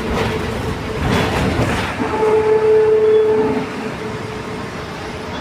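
Mercedes-Benz LO 916 bus with an OM 924 LA four-cylinder diesel, running, with a steady whine that comes in about two seconds in and stops about a second and a half later. It fits the differential whine the bus is known for.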